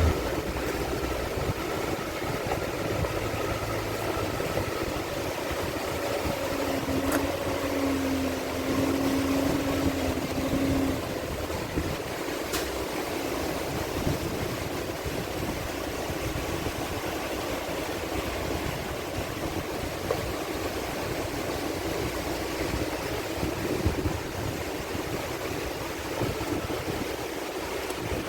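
Heavy haulage truck on the move: steady engine and road noise. A low steady hum sounds over it for a few seconds, about a quarter of the way in.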